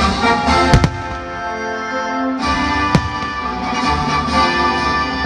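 Orchestral music with strings plays steadily over a fireworks display. Sharp firework bangs cut through it, two close together about three quarters of a second in and one near three seconds in.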